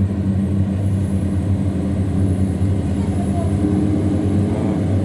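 River tugboat's engine running with a steady, loud drone while it tows a string of loaded cargo barges upstream against the current.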